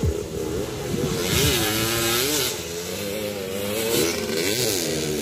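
Small dirt bike engine revving up and down as it is ridden around a dirt track, its pitch rising and falling over and over.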